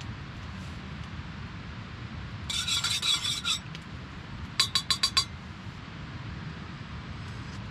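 Spoon scraping round inside a metal camp mug for about a second, then five quick ringing clinks of the spoon against the mug.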